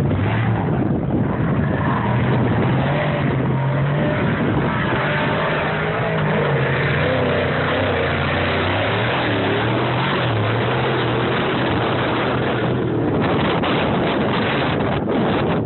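A motor vehicle engine running continuously, its pitch rising and falling slightly.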